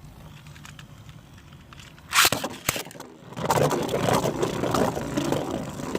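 Beyblade spinning tops whirring in a stadium, then a single sharp hit about two seconds in, followed by rapid clattering and scraping as the tops clash again and again.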